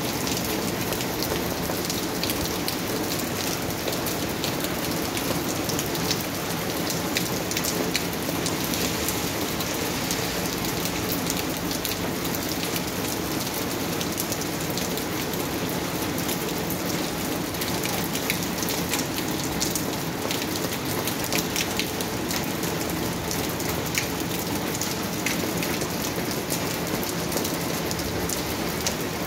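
Heavy rain falling steadily on wet asphalt and concrete pavement and splashing into puddles, with a dense patter of individual drop impacts.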